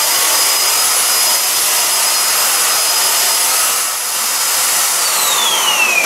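Kitfort KT-581 upright stick vacuum cleaner running on the floor: a steady rushing hiss with a high whine from its motor. About five seconds in, the whine starts to fall in pitch as the motor winds down.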